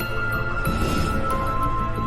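Background score music: slow held notes over a low sustained drone, with a higher held note coming in partway through.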